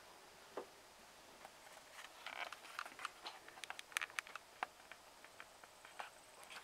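Faint, scattered small clicks and light rustling: people handling gear inside a small wooden hunting blind, most of the clicks coming in a cluster in the middle of the stretch.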